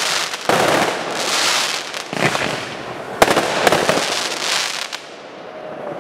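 Fireworks finale: aerial shells bursting in repeated waves of dense crackling, with one sharp bang a little past three seconds in, then dying away near the end.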